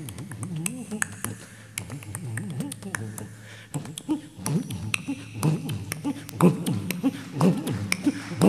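Solo percussion: crisp, sharp drum strokes over low bass tones that bend up and down in pitch, with no melody. The strokes are sparse at first and grow busier and louder from about halfway.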